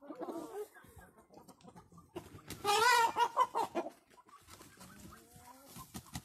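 Light Brahma chickens clucking, with one loud, drawn-out call with a wavering pitch about halfway through.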